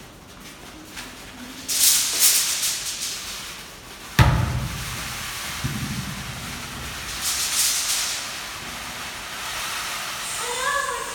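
Hand-made foley sound effects: bursts of hissing noise, a single sharp bang about four seconds in followed by a low rumble, and a short wavering voice-like wail near the end.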